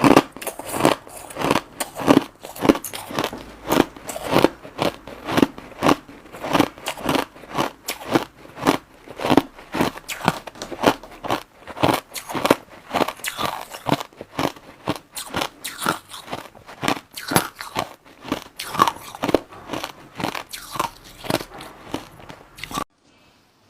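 Crushed white ice being bitten and chewed: loud, crisp crunches about two to three a second. They stop abruptly shortly before the end.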